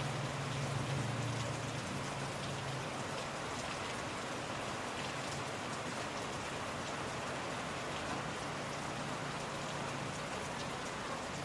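Steady rain falling in a dense, even patter. A low hum under it fades out about two to three seconds in.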